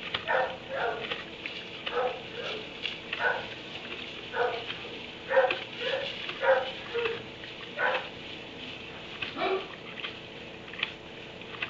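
A dog barking repeatedly: about a dozen short barks in loose runs with small gaps. One bark about nine and a half seconds in drops in pitch.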